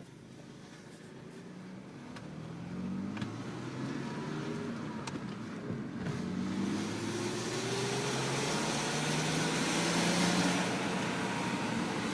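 Audi S4 B5's twin-turbo V6 accelerating hard, its pitch climbing several times with drops between as it shifts up through the gears, under a growing rush of road and wind noise. The car is suspected of a failing turbo.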